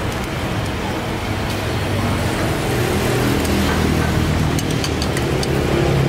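Road traffic with a motor vehicle engine running close by, louder from about halfway in, over a steady hiss. A few light clinks of metal tongs against a bowl come near the end.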